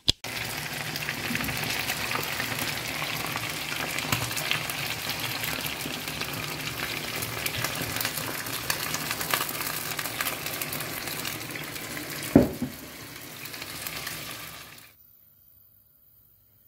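Chicken wings frying in a pan: a steady crackling sizzle while wine is poured over them. A sharp knock about twelve seconds in; the sizzle cuts off a couple of seconds before the end.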